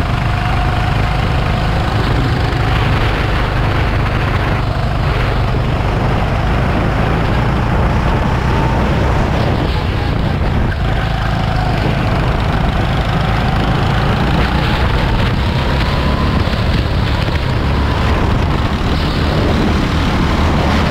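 Go-kart engine running at speed, its pitch rising and falling gently over a steady low rumble.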